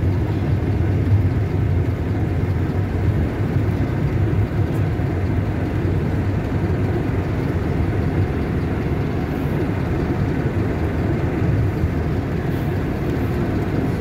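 A moving road vehicle heard from inside its cabin: a steady low engine and road rumble with no breaks.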